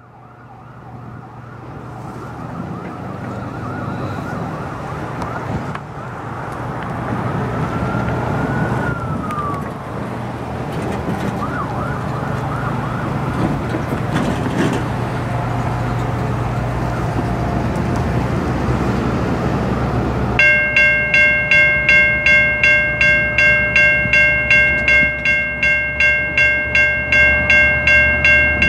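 A distant siren wails over a steady low rumble, with one long rising-then-falling sweep near the middle. About two-thirds of the way through, a railroad grade-crossing bell starts ringing, about two to three strokes a second, as a Norfolk Southern diesel freight approaches.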